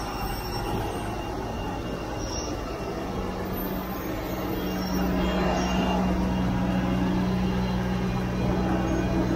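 Airport shuttle bus running while it waits with its doors open, a steady low hum that grows louder about halfway through as it is approached, over a steady roar of apron noise.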